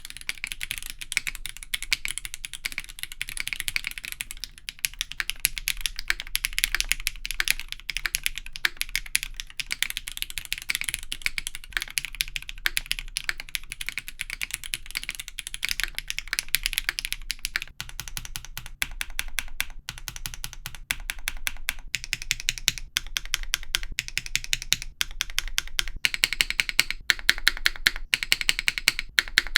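Typing on a Sebas mechanical keyboard, a CNC polycarbonate case on a gummy O-ring mount, built with Cherry MX Black switches on an aluminium plate. It is a fast, continuous run of keystrokes with a deeper, more muted tone, and the strokes become louder and more spaced out in the last third.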